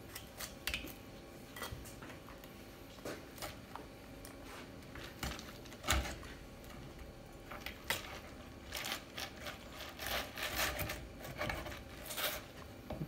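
Kitchen knife cutting through the head of a pufferfish on a plastic cutting board: irregular crunching clicks and short scrapes as the blade works through skin and bone, with a few sharper cracks.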